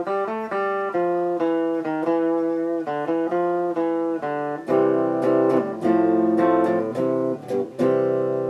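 Gibson Les Paul Custom electric guitar played solo. A melodic line of single picked notes gives way to fuller chords about halfway through, and it ends on a chord left ringing and fading.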